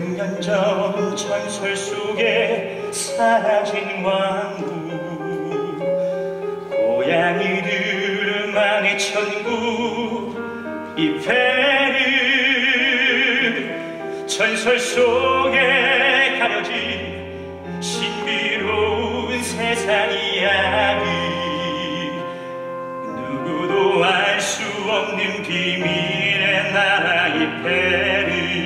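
Musical-theatre song: a man singing in a full, operatic style with strong vibrato over an orchestral backing with piano, with low bass notes coming in about halfway through.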